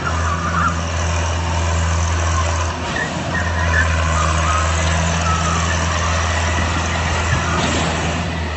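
Tractor diesel engine running steadily under load, with a brief dip about three seconds in. A few short, high, wavering squeals sound over it.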